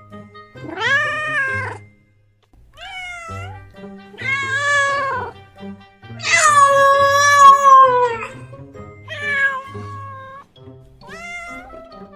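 Domestic cat meowing about six times, the calls bending up and down in pitch; the longest and loudest comes about halfway through, a drawn-out meow falling in pitch at its end.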